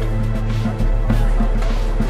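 Soundtrack music with a heavy, steady bass and a regular beat; the bass drops out briefly a little under a second in.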